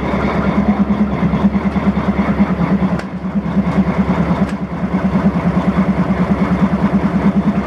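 GE Dash 8-32B locomotive's twelve-cylinder 7FDL diesel engine running at idle, freshly started with fresh fuel after months in storage. It keeps a steady pulsing beat, sagging briefly twice, about three and four and a half seconds in.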